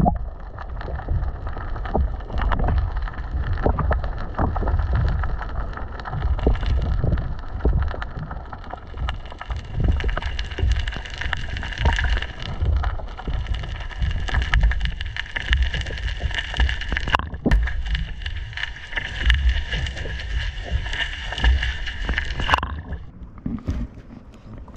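Water sound picked up by an underwater camera: a churning low rumble with many small clicks and crackles and a steady high whine, all cutting off sharply about 22 seconds in as the sound switches to the air above the surface.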